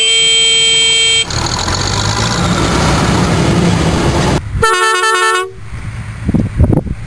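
A horn sounds steadily for about a second. Then a Bizon combine harvester's engine and machinery run. About four and a half seconds in, a second, shorter horn sounds with a wavering pitch, followed by a quieter engine rumble.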